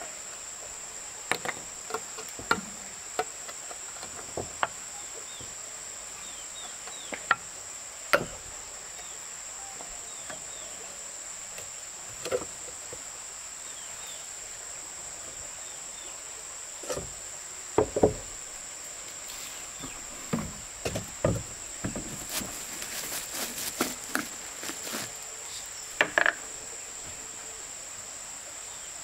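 A steady, high-pitched insect chorus, with scattered sharp knocks and taps over it that are busiest in the last third.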